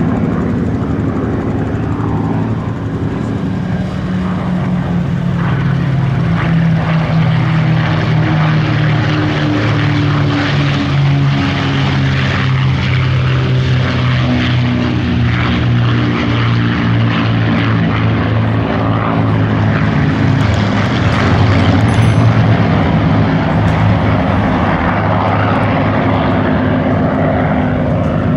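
Three Spitfires' Rolls-Royce V12 piston engines, a Griffon and two Merlins, running together in formation flight: a steady propeller drone in which several engine notes at slightly different pitches sound at once and drift against each other, swelling slightly near the end.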